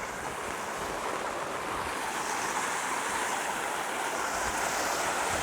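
Heavy monsoon rain and rushing runoff water: a steady hiss that grows gradually louder.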